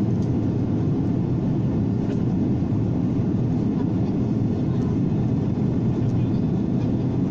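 Steady rush of jet airliner cabin noise: engines and airflow heard from inside the passenger cabin.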